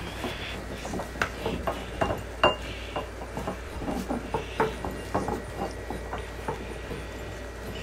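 Puppies eating dry kibble from small ceramic bowls: irregular clicks and clinks of kibble and bowls knocking on a wooden deck. A brief high squeak about two and a half seconds in.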